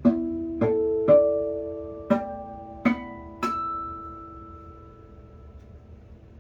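A 1969 Alfonso Checa guitar played note by note: six single plucked notes in quick succession, each left to ring, the last one sustaining and fading away.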